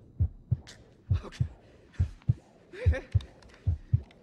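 Heavy heartbeat in the film's sound design: deep double thumps, about one pair a second. Over it come a man's shaky breaths and a brief whimpering sob about three seconds in.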